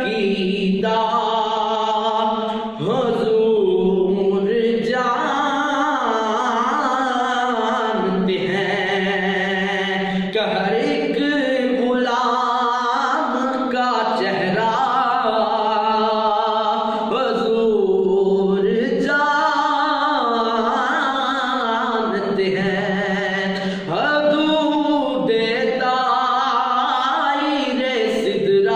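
A young man singing a devotional Urdu song (naat) solo and unaccompanied, in long held notes that waver in pitch.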